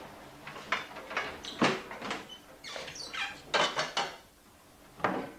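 Kitchen clatter: an irregular run of sharp knocks and clinks from utensils and crockery, with a short lull a little after four seconds.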